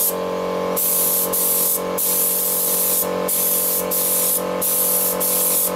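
Siphon-feed air spray gun spraying grey primer onto a car fender in about seven short trigger bursts of loud hiss, with brief gaps between them, over a steady hum.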